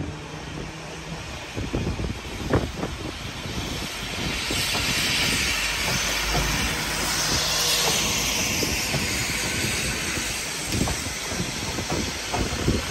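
SA137 diesel multiple unit passing close by, its engine running and its wheels clicking over the rail joints. A hiss swells to a peak midway through and then eases off.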